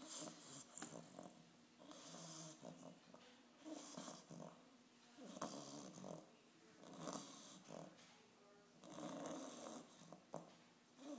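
An 8.5-week-old English bulldog puppy snoring faintly, one snore with each breath, about every one and a half to two seconds.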